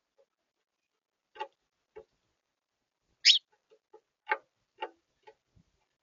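Small birds at a feeder: scattered short clicks and ticks, and one brief, louder high chirp about three seconds in.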